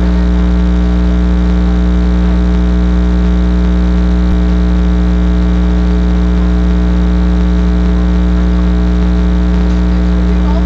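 Loud, steady electrical mains hum with a buzzing stack of overtones, unchanging throughout.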